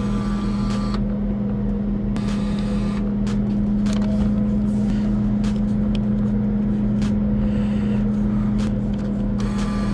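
A steady low mechanical hum runs throughout, with scattered sharp clicks and short stretches of clatter near the start, about two seconds in, and near the end.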